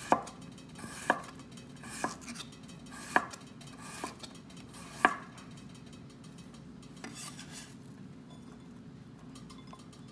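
Kitchen knife slicing a jicama on a cutting board: six sharp knocks of the blade on the board about a second apart, the last the loudest, then the cutting stops about halfway through.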